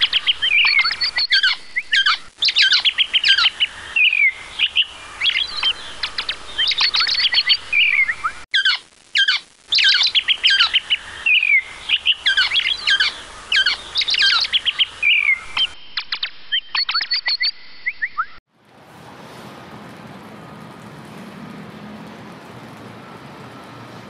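Songbirds singing, short chirping phrases repeated over and over with quick falling notes. About eighteen seconds in, the birdsong cuts off and gives way to a steady, even hiss.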